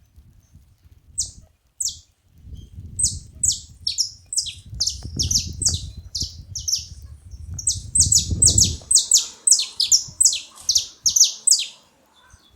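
Several saffron finches calling: a run of short chirps, each falling in pitch, coming thicker and faster in the second half. A low rumble sits under the calls through the middle.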